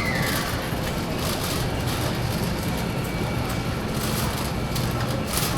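Shopping cart wheels rolling over a hard store floor, a steady rumble with occasional clicks and rattles, over the general background noise of a busy warehouse store.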